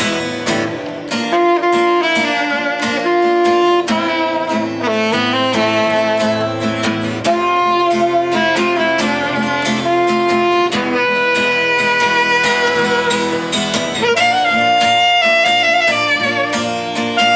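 Live band playing an instrumental break: strummed guitar keeps a steady rhythm under a sustained, singing lead melody line.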